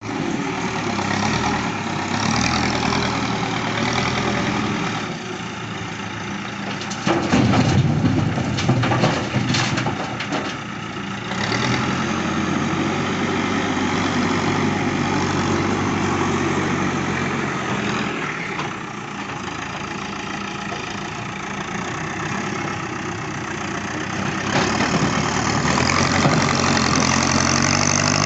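Backhoe loader's diesel engine running as the machine works, its revs rising and falling. A stretch of knocking and clanking comes about seven to eleven seconds in, and the engine gets louder again near the end.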